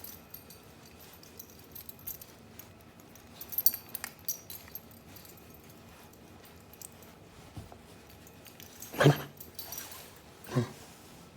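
Dog coughing twice near the end, two coughs about a second and a half apart, each dropping in pitch.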